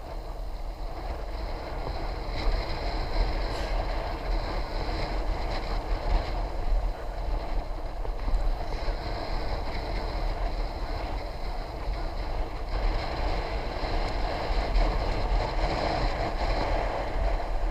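Steady wind rush buffeting the microphone, with tyre and road noise from a bicycle being ridden along a road.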